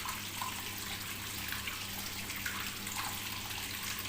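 Top-load fully automatic washing machine draining its wash water: a steady rush of water with a low, steady hum from the drain pump.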